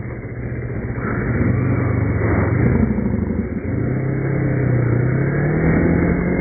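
Motorcycle engine accelerating, its pitch climbing once about two seconds in and again steadily through the second half, over wind rush.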